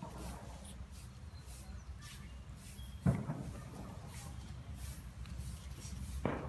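A Lhasa Apso and a pug play-wrestling on dirt ground: faint scuffling over a steady low rumble, with two brief thumps, the louder one about three seconds in and another near the end.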